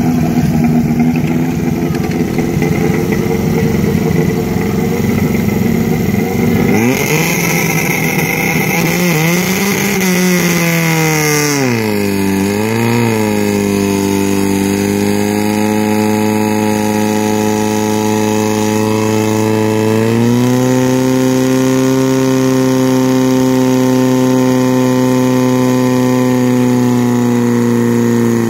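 Portable fire pump's engine running hard at high revs, pumping water into the attack hoses. A hiss rises over it for a few seconds near the middle. Its pitch then dips and wobbles twice, holds steady, steps up a little about two-thirds of the way through, and drops right at the end.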